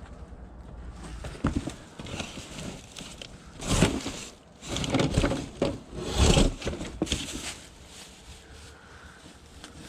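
Rustling, shuffling and light knocking of belongings being handled and moved, in several bursts that are loudest in the middle.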